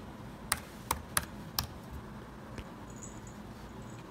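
Four keystrokes on a Late 2016 MacBook Pro's butterfly-switch keyboard, sharp clicks in quick succession over about a second. The keys have a weird clicky sound, hollow almost.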